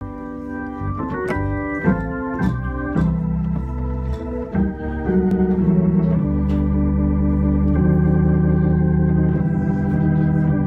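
Viscount Legend Live drawbar organ playing gospel chords through a Leslie 2101 mk2 rotary speaker. A quick run of moving notes in the first few seconds, then full held chords over a steady bass that change every second or so and waver as they sustain.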